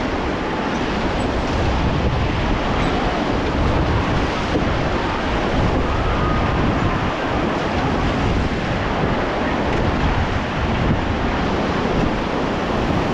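Beas River water rushing steadily around a raft, with wind buffeting the microphone.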